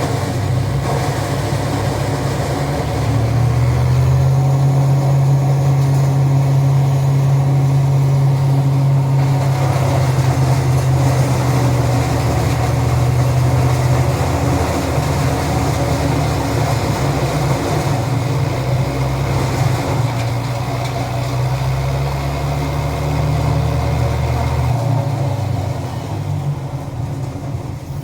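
Garden branch shredder running with a steady, loud low hum; it gets louder about three seconds in and drops away near the end.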